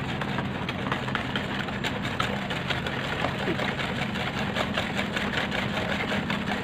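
Metal wire whisk beating a runny egg-and-sugar batter in a plastic bowl: fast, uneven ticking and clattering of the wires against the bowl, over a steady low hum.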